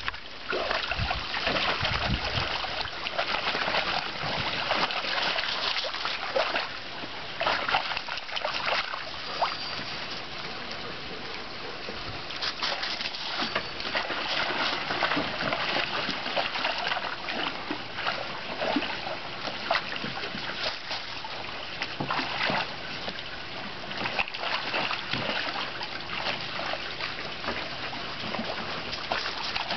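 Dogs splashing and sloshing water in a small hard-plastic kiddie pool as they step and scramble in it, in many uneven splashes.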